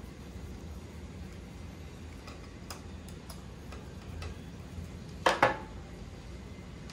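Faint, scattered clicks of a Phillips screwdriver and small screws on a metal mounting bracket plate as the screws are taken out. About five seconds in come two sharp knocks close together, as the screwdriver is put down on the hard table.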